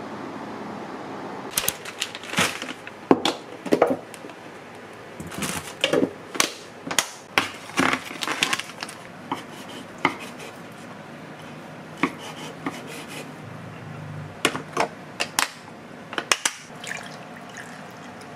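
Kitchenware being handled: dishes, pots and utensils knocking and clinking in an irregular run of sharp clicks and knocks over a steady background hum.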